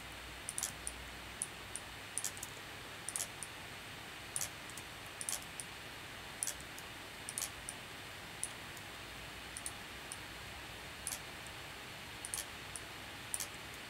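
Computer mouse clicking at irregular intervals, about once a second and sometimes twice in quick succession, each click placing a point of a curve in 3D software. A faint steady hiss runs underneath.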